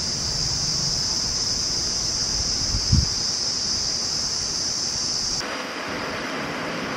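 Outdoor ambience dominated by a steady high-pitched insect buzz, with wind noise and a single low thump about three seconds in. About five and a half seconds in the sound changes abruptly to a broader, duller hiss.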